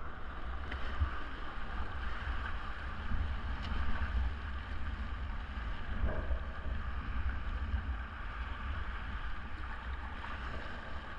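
Whitewater river rushing around a kayak, a steady even rush, with wind buffeting the microphone in a fluttering low rumble.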